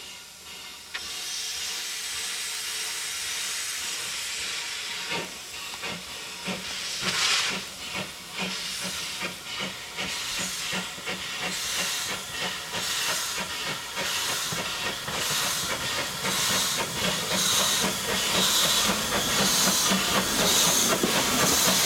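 LBSCR Stroudley Terrier 0-6-0 tank steam locomotive pulling away. A steady steam hiss starts about a second in, then exhaust chuffs come at a slow, even beat with steam blowing from the open cylinder drain cocks, growing louder as the engine comes closer.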